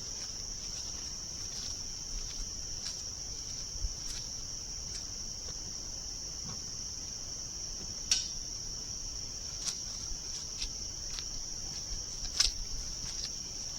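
Crickets chirring in a steady high-pitched trill, with a few light clicks and knocks scattered through, the sharpest about eight and twelve seconds in.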